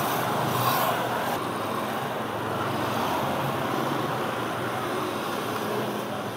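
Steady roadside traffic noise from motorcycles and cars passing on the street.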